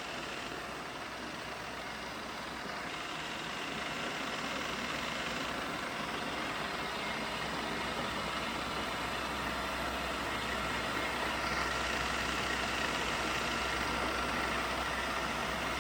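Novisa radial arm drill's spindle running steadily at its top speed of 1470 rpm, an even machine hum and whir with a low electric hum beneath. It runs smoothly with no extra noise from the spindle, a sign of a sound spindle and gearbox.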